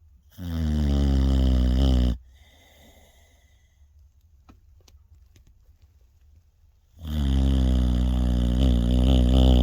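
Loud snoring: two long, low-pitched snores, the first starting just after the beginning and the second, longer one about six and a half seconds later, with a faint breath between them.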